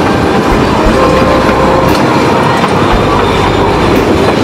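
Puffing Billy narrow-gauge steam train running, heard from an open-sided carriage: a steady rattle and clatter of the carriages and wheels on the rails as it rounds a curve, with a few brief thin wheel squeals.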